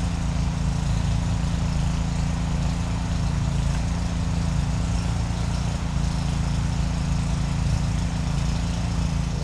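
A small engine running steadily at a constant speed, a low, even drone with no change in pitch.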